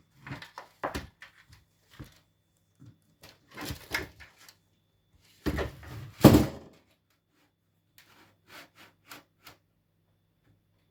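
Clicks, knocks and clatter of parts being handled during PC assembly, with two louder thuds about five and a half and six and a half seconds in, then a few light ticks.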